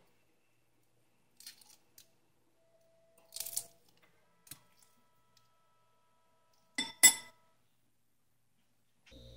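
A few short clicks and crackles of hard-boiled eggshell being peeled, with shell pieces dropping into a glass bowl; the loudest is a sharp double clink about seven seconds in. Background music comes in at the very end.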